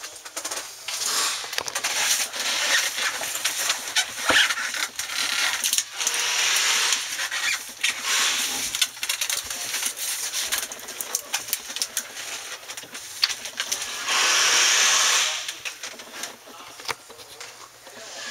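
Aluminum foil tape being handled: crinkling and rustling with scattered clicks. About fourteen seconds in comes a steady hiss lasting about a second and a half, like tape being pulled off its roll.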